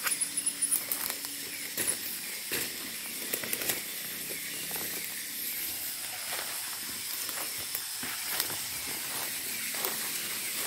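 Footsteps and rustling through forest undergrowth, irregular soft crunches and brushes of leaves, over a steady high hiss of night insects.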